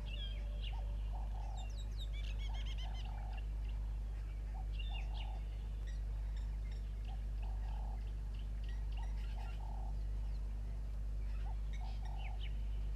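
Waterhole dawn ambience: small birds chirping, with a quick trill about two seconds in, and short low calls repeating about once a second, over a steady low hum.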